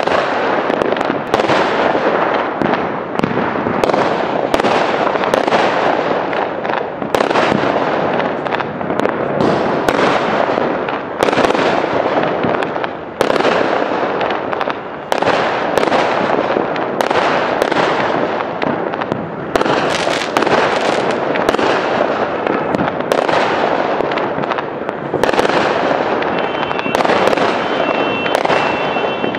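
Aerial fireworks display: a dense, continuous crackle of bursting shells, punctuated by frequent sharp bangs that come irregularly, often less than a second apart.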